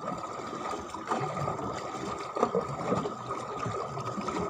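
Water lapping and trickling against the hull of a small wooden boat, with a faint steady high whine underneath and a few light knocks.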